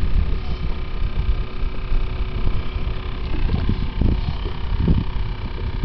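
Wind buffeting the microphone in a loud, uneven low rumble, with a faint steady hum above it.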